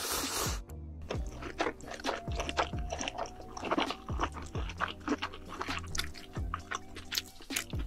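Close-miked eating sounds of spicy ramen noodles: a short wet slurp at the start, then chewing with many sharp wet smacks and clicks. Background music with a steady beat plays underneath.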